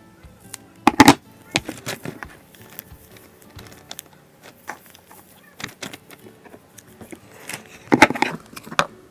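Handling noises of slime-making: clicks, taps and rustles of small containers and materials being handled, with louder clattering bursts about a second in and again near the end.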